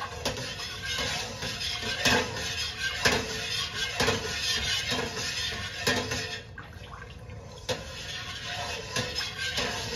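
A long metal spoon stirring soy milk in a stainless steel stockpot, scraping and knocking against the pot about once a second, with the liquid swishing.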